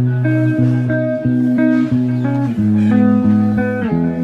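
Background music led by plucked guitar, its notes and chords changing every half-second or so.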